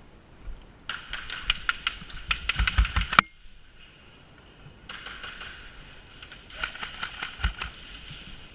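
Airsoft gun firing two long bursts of rapid shots, the first cutting off sharply, the second starting about a second and a half later.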